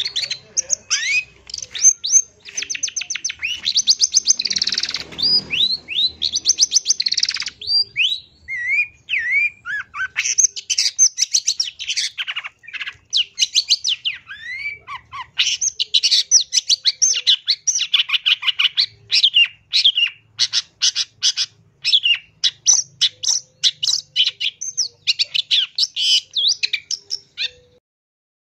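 Long-tailed shrike singing a long, rapid, varied song: quick runs of sharp chattering notes mixed with sliding whistles, with a harsh rasping stretch about four to seven seconds in. It stops just before the end. This full, non-stop song is the kind used as a lure to make other shrikes answer.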